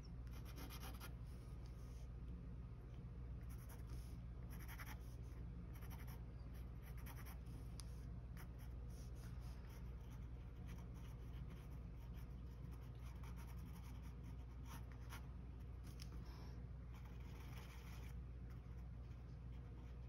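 Fine-tip ink pen scratching across paper in short, irregular bursts of strokes, over a faint steady low hum.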